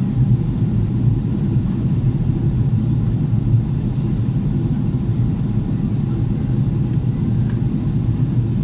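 Steady low rumble inside the cabin of an Airbus A330-243 on its approach, from the Rolls-Royce Trent 700 engines and the airflow over the fuselage.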